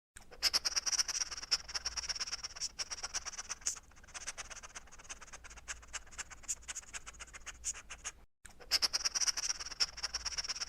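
Dense, irregular crackling and scratching clicks over a steady high hiss, with a brief break about eight seconds in.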